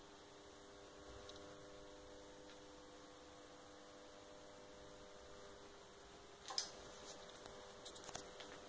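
Near silence: room tone with a faint steady hum, and a few soft clicks in the last two seconds.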